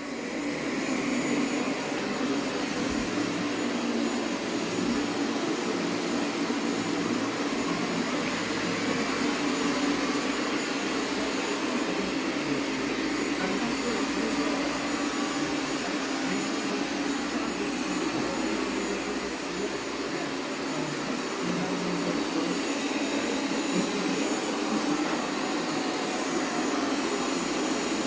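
Robot vacuum cleaner running, a steady whirring hum that grows louder at the very start and then holds level.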